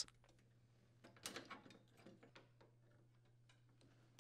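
Faint, scattered clicks and small plastic knocks as plastic water lines are worked free of a refrigerator water inlet valve's push-in ports, with a faint low hum underneath.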